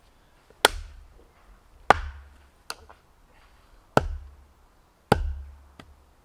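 A Hultafors hunter's axe chopping into a piece of wood: four heavy, evenly spaced blows, each a sharp crack with a dull thud, about one every second and a quarter. Two lighter knocks fall between them.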